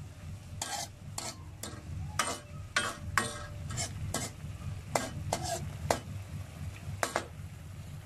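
Metal ladle scraping and stirring against a wok full of liver, onions and sauce, in a quick run of strokes two or three a second with a short pause before a last pair near the end. The sauce is simmering, and a steady low hum runs underneath.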